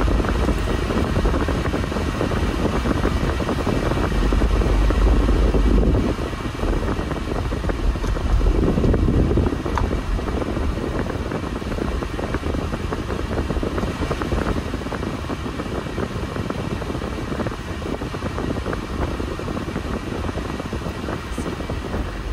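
A small camper van being driven: steady engine and road rumble, swelling twice in the first half.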